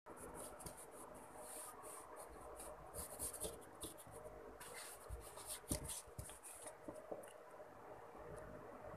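Faint scraping and rustling of a sheet of cardboard being handled and rubbed on a table, with a few soft knocks, the loudest a little past halfway.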